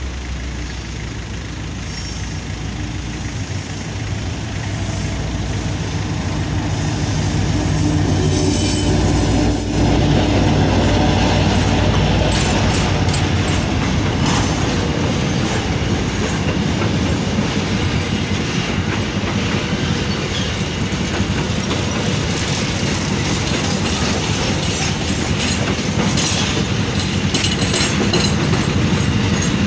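Diesel freight locomotive approaching and passing close by, its engine growing louder over the first ten seconds or so. A long string of covered freight wagons then rolls past, wheels clicking over the rail joints.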